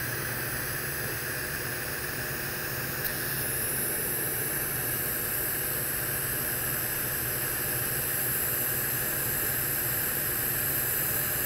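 TIG welding arc at about 90 amps tacking a Monel 400 pipe joint: a steady hiss and buzz that gets a little sharper about three seconds in.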